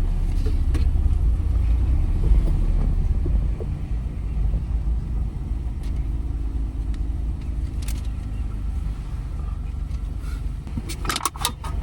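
A car running and rolling slowly, heard from inside the cabin as a steady low engine and road rumble, strongest for the first few seconds. A few short clicks come near the end.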